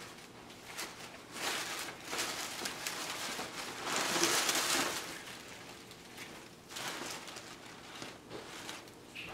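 Tissue paper rustling and crinkling as hands handle it in paper gift bags, loudest about four seconds in.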